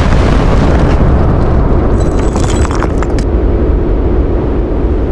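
Layered anime explosion sound effect: a loud, deep rumble that slowly fades, with a flurry of sharp crackles about two to three seconds in.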